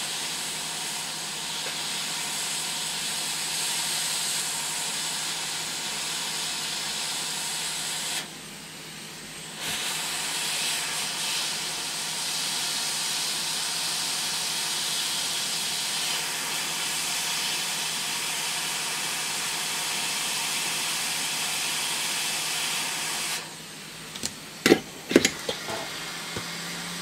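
Hot air rework station blowing a steady hiss of air at 60 litres a minute, reflowing a replacement surface-mount transistor onto a circuit board. The air drops away for a moment about eight seconds in, then cuts off about 23 seconds in, followed by a few sharp clicks.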